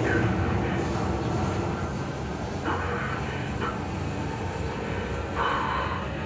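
Low, steady rumble from a film or demo soundtrack played back over home-theatre loudspeakers and picked up in the room, with a few short brighter hissing swells, the longest near the end.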